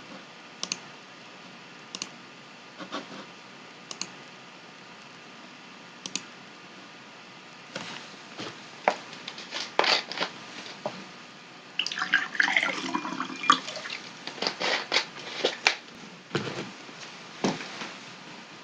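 Scattered sharp clicks and taps over a faint steady hiss, a few at first and coming thick and fast in the second half.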